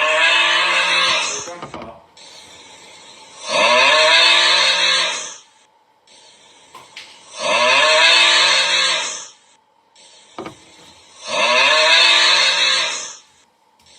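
A drawn-out 'ugh' groan, the same sound effect looped about every four seconds, each groan under two seconds long and falling in pitch.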